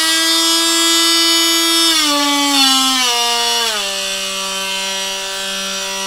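Festool OSC 18 cordless oscillating multi-tool running with no load, a loud steady whine. About two, three and nearly four seconds in it drops in pitch step by step as it is switched down through lower speed settings.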